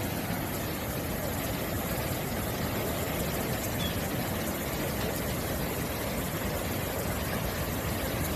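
Fast-flowing muddy floodwater rushing steadily, a continuous even rush with no breaks.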